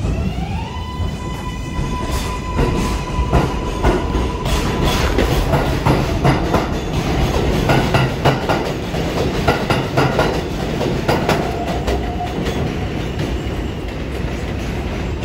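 R142A subway train pulling away from an elevated station. Its motors whine, rising in pitch over the first second and then holding steady for a few seconds, while from about two seconds in the wheels clatter over the rail joints in quick repeated clacks as the cars roll past.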